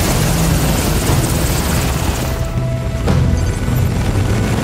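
Heavy-lift helicopter rotors and turbines running loud as the helicopter lifts off, with a dense whooshing wash and a throbbing low end, mixed with background music. Just past halfway the high hiss drops away and the music's steady notes stand out more.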